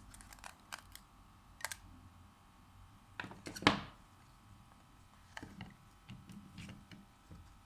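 Scattered light clicks and taps of small repair tools and parts being handled on an opened phone, with a sharper clatter about three and a half seconds in.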